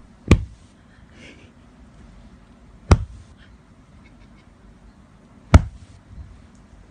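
Three sharp single knocks, about two and a half seconds apart, over a quiet background.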